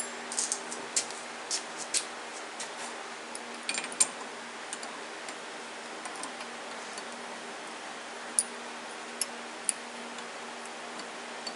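Scattered sharp metallic clicks and taps of tooling being handled at the lathe while a new drill bit is set up, over a steady low hum.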